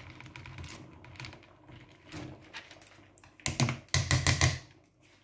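Rice sliding out of a plastic strainer bowl into a stainless steel pot of coconut-milk sauce with a soft patter, then a quick run of knocks as the strainer is knocked against the pot rim to shake out the last grains.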